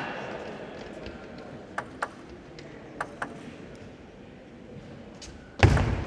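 Table tennis ball clicking in two quick pairs, bounced as the server gets ready, over a low hall murmur. A loud thud comes near the end.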